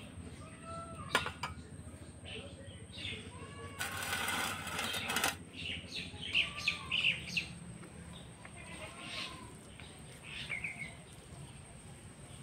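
Small birds chirping and calling again and again, short arching notes and quick chirps. A sharp click comes about a second in, and a rushing burst of noise lasts about a second and a half around four seconds in.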